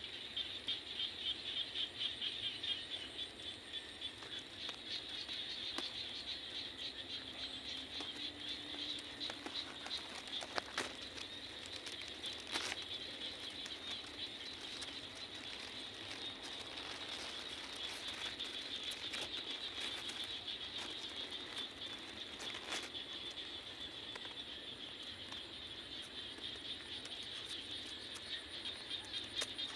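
Night insects, likely crickets, keeping up a steady, rapidly pulsing high trill, with scattered faint clicks over it.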